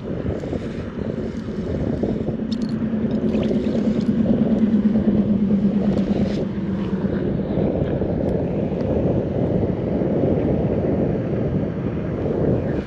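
Wind buffeting the microphone: a steady low rumble, with a faint hum between about two and six seconds in and a few light clicks.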